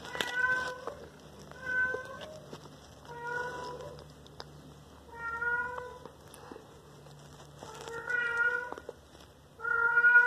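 A cat meowing repeatedly, six short calls spaced about one and a half to two seconds apart.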